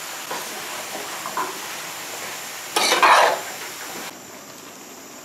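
Diced pumpkin sizzling in a large aluminium pot while a metal spoon stirs it, the spoon clinking and scraping against the pot, loudest in one scrape about three seconds in. The sound drops quieter after about four seconds.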